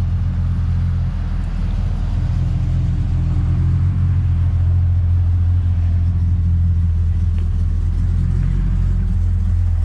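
Classic American muscle car's engine idling, a steady low idle that holds even throughout.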